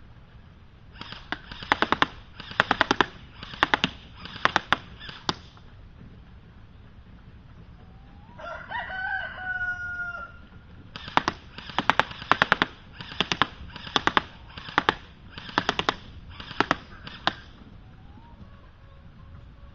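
DPMS Panther airsoft rifle firing in quick clusters of shots, two runs of sharp cracks. Between the two runs a rooster crows once.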